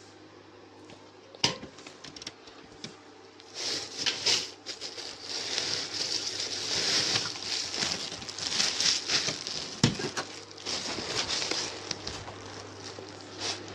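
Rustling and scraping handling noise as a hand-held phone rubs against cloth, with a sharp click about a second and a half in and another near the end. A steady low hum sits underneath.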